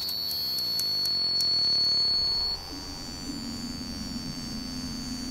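A steady high-pitched electronic whine from a dial-controlled electronic indicator unit. About halfway through it drops in level and a low steady drone comes in underneath.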